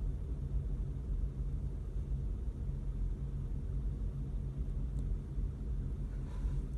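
Delaware and Hudson diesel locomotive engine idling with a low, uneven rumble, which the railfan takes for misfiring and thinks may come from faulty injectors.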